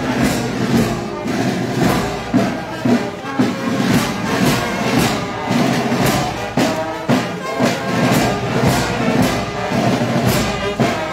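Brass band music with a steady drum beat.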